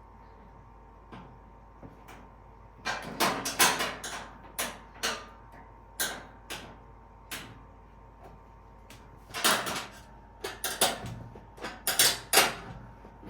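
Knocks and clunks of dryer parts being handled and fitted back together, in irregular bunches: a first cluster about three seconds in, scattered knocks after it, and a denser run from about nine and a half seconds on.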